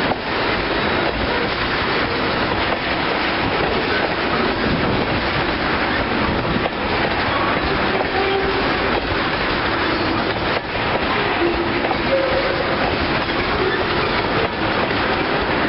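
Freight train of tank cars rolling steadily past close by: a continuous rumble of steel wheels on the rails, with the wheels clattering over the rail joints.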